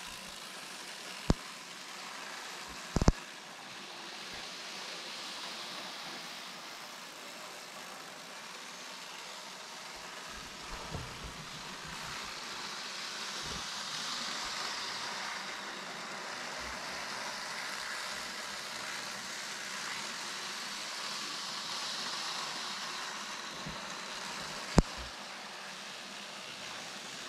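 Small-scale model trains running on their track: a steady whirring hiss that swells twice as a train passes close, with a few sharp clicks.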